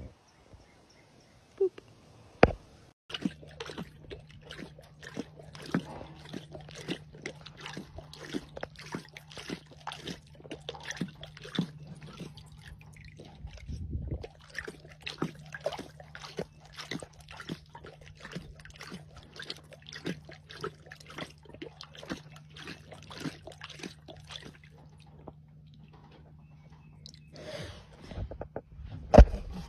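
White lioness lapping water from a tub: a long run of quick, wet laps, about three a second, over a low steady hum. A few sharp knocks come just before the lapping starts, and a louder one near the end.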